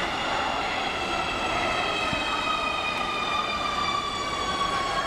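Nuremberg U-Bahn DT3 train arriving at a platform and slowing, with the rumble of its wheels and the whine of its traction motors. The whine is a stack of tones that slowly falls in pitch as the train decelerates.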